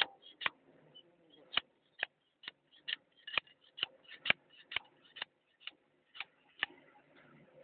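Steel box-end wrenches clicking on the cylinder-head bolts of a Doosan excavator diesel engine as they are turned: a run of sharp, short metallic clicks, irregular, about two a second.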